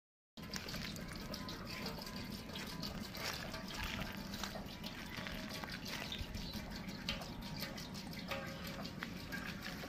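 Cooking oil trickling in a thin, steady stream from a large plastic bottle into a big aluminium cooking pot, with small drips and splashes on the oil already pooled in the bottom.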